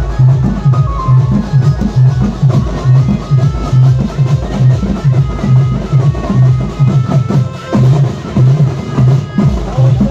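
Loud Maharashtrian banjo-party band music: a stepping banjo melody over heavy drums with a strong, steady bass-drum beat.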